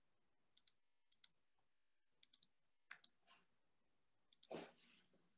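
Faint computer mouse clicks, coming in small groups of two or three, with a brief soft rustling noise near the end.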